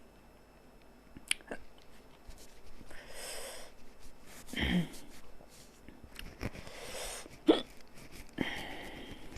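A woman hiccuping: three short, sharp hiccups about a second, four and a half seconds and seven and a half seconds in, the last the loudest, with breathy exhales between them. The hiccups are set off by eating very spicy noodles.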